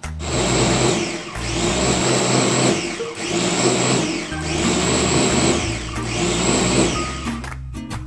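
Electric food chopper's motor whirring as it blades chilies, garlic and herbs in liquid into a fine sauce, run in about five pulses with short breaks between.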